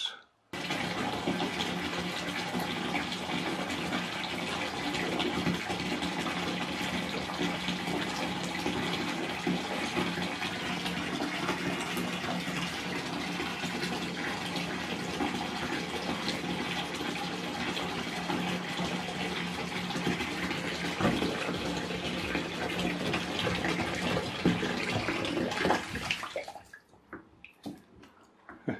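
A bath tap running steadily, filling the bathtub with water, until it stops about 26 seconds in.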